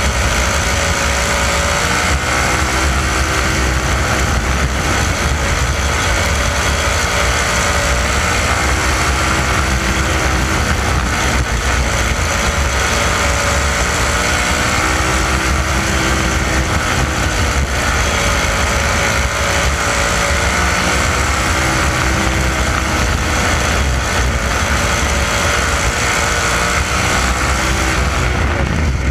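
360 sprint car's 360-cubic-inch V8 running hard at racing speed, heard from on board the car. Its pitch rises and falls in slow waves as the car goes down the straights and through the turns.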